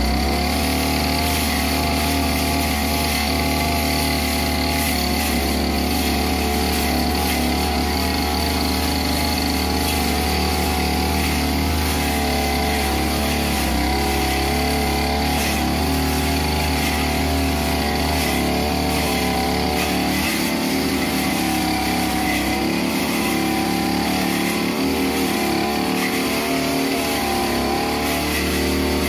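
Backpack '328' brush cutter's small two-stroke engine running steadily at high speed while its steel blade cuts through tall weeds and grass, the pitch wavering slightly as the load changes.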